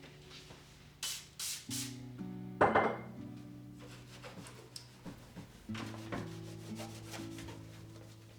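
Short scrubbing strokes rubbing against a surface, a few close together in the first three seconds and fainter ones after, over soft instrumental background music with slow held notes.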